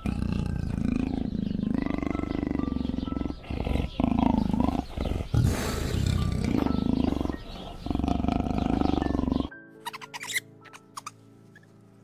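A big cat growling and roaring in a long, rough, rumbling run of calls over background music. It cuts off suddenly near the end, leaving only the music with light plucked notes.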